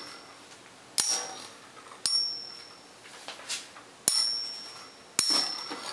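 Two Beyblade Metal Fusion spinning tops, Gravity Destroyer and Dark Wolf, clashing their metal wheels: four sharp metallic clinks, each with a brief high ring.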